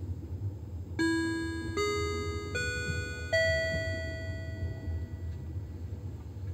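Four-note rising chime over a train's public-address system, each bell-like note ringing on and fading with the last held longest. It is the signal that a passenger announcement follows. Under it runs the steady low rumble of the moving train.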